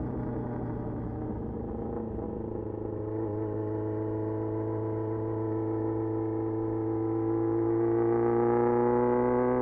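Loud exhaust of a 1994 Yamaha XJR1200's air-cooled inline-four engine while riding, running steadily at low revs, then rising slowly in pitch and loudness over the last few seconds as the bike accelerates.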